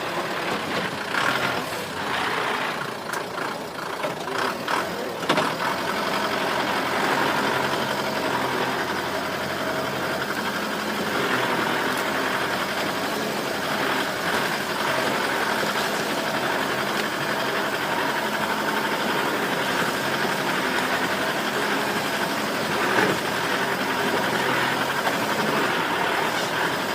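Off-road truck engine running steadily while driving on a rough dirt road. There are several knocks and rattles in the first few seconds and one sharper thump near the end.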